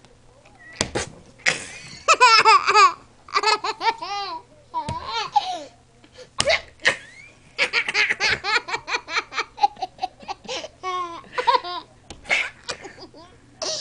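A toddler laughing hard in repeated runs of high-pitched belly laughs, with a short pause about halfway through.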